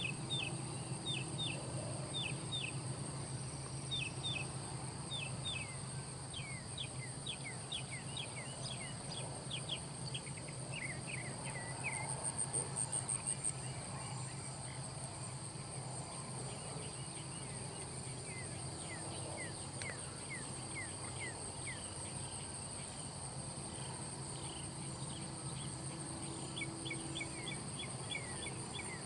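Steady high-pitched insect drone from crickets, with a brief pulsing burst about twelve seconds in. Runs of short, quick falling chirps sound through much of it, and a low steady hum lies underneath.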